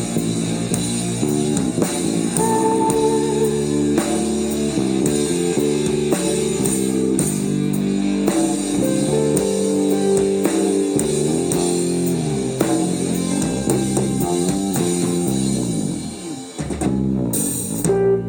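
Psychedelic rock band playing an instrumental passage live, with guitar, bass guitar and drum kit. The music thins out briefly near the end.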